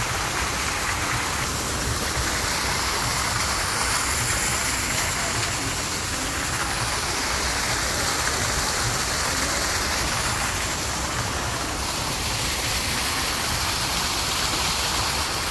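Steady rushing noise, an even hiss over a low rumble, unbroken throughout.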